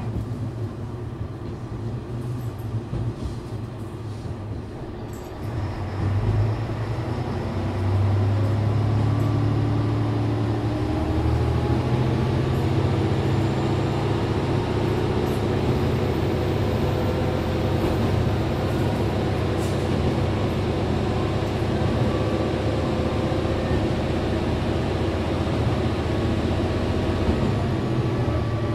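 JR Shikoku 1000 series diesel railcar running, its engine getting louder about six seconds in and again about two seconds later. Its note then climbs slowly in pitch as the train gathers speed.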